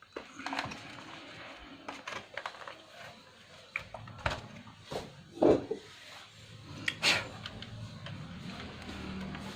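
Irregular clicks, knocks and rubbing of plastic laptop parts handled during reassembly, with a couple of louder knocks in the middle and about seven seconds in.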